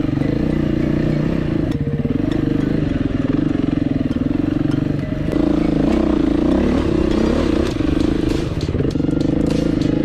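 Dual-sport motorcycle engine running on a trail ride, its pitch rising and dropping several times as the throttle is worked. Scattered clicks and clatter from rocks under the tyres come in mostly in the second half.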